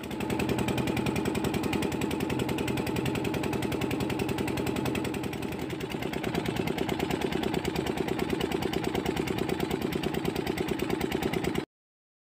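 Small green diesel engine of a wooden river fishing boat running steadily, a fast, even beat of firing strokes; the sound cuts out suddenly near the end.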